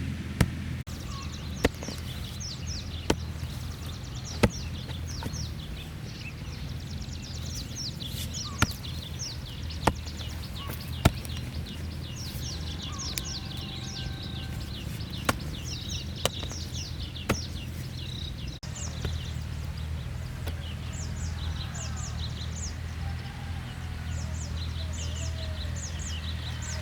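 Many small birds chirping and twittering, with sharp knocks about every second and a bit in three short runs over a steady low hum.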